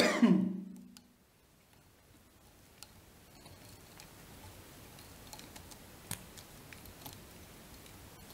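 Faint, scattered light clicks and ticks from hands working thread and materials on a hook held in a fly-tying vise.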